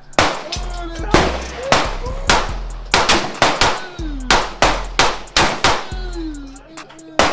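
Rapid gunfire at a shooting range: about a dozen sharp shots, irregularly spaced, each with a brief ringing tail.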